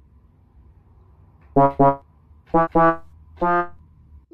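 Electronic keyboard pecked by a rooster, sounding short synthesizer notes: two quick pairs, then one longer held note near the end.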